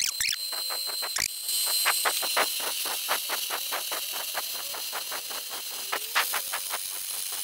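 Cordless drill running with an arrowhead tile bit grinding into hard porcelain tile: a steady high motor whine with a fast, even ticking as the bit chatters against the tile.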